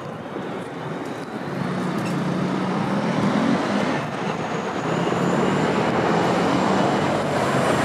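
Busy road traffic: a heavy vehicle's engine and tyre noise swells from about a second in and holds steady, with a thin high squeal coming in near the end.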